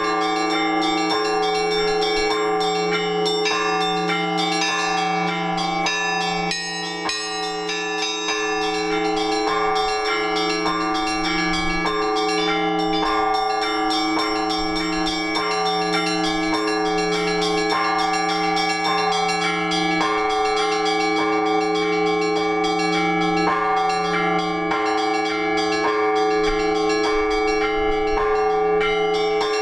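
Russian Orthodox church bells rung together by a bell-ringer, heard close up in the belfry: a deep bell's low hum swells with a stroke every second or two under fast, repeating strikes of several smaller bells.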